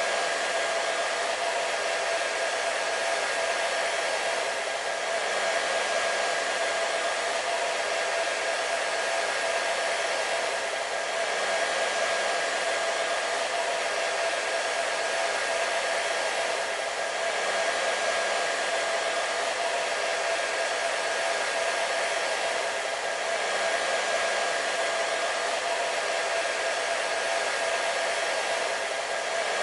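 Hair dryer running steadily: a continuous rush of blown air with a constant motor whine underneath, swelling slightly every few seconds.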